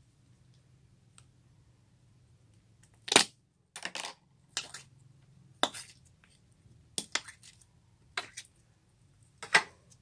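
Slime being pressed and poked by hand, giving a string of short, sharp pops and clicks, about seven of them, starting about three seconds in.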